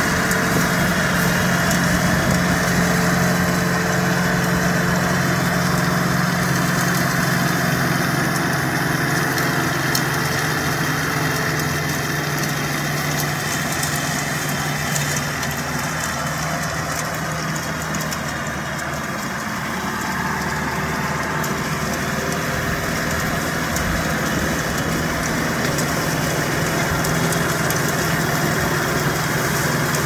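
Tongyang TX85 tractor's diesel engine running steadily while it pulls a rotary rake through loose rice straw, a little quieter about halfway through as the tractor moves farther off.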